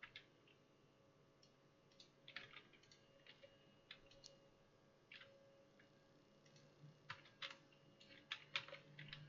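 Faint, irregular clicks of a computer mouse and keyboard, growing more frequent near the end, over near-silent room tone.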